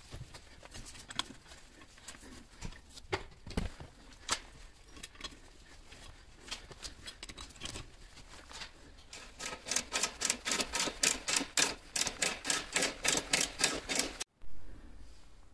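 Ratchet socket wrench clicking while lug nuts on a steel wheel are undone, with scattered metal clicks and clinks at first. In the second half this becomes a quick, even run of ratchet clicks, about four a second, which cuts off suddenly near the end.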